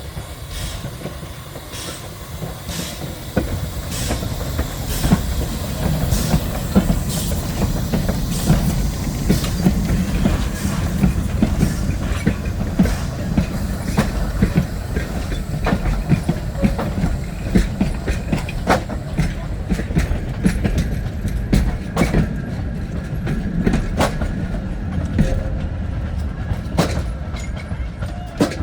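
A train rolling past on the track, with a steady low rumble and many sharp clicks as the wheels cross the rail joints. It gets louder about four seconds in and thins out near the end.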